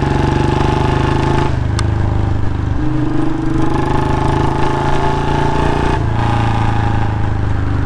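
Royal Enfield Standard 350's single-cylinder engine running loud through an aftermarket long-bottle silencer while riding, its note stepping up and down a few times as the throttle changes, with one sharp click about two seconds in. The owner blames a slight leak at the front of the exhaust pipe, where the copper exhaust gasket needs replacing, for the note not coming through properly.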